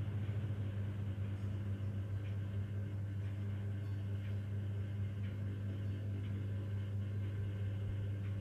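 A steady low machine hum that holds one pitch, with a faint hiss above it.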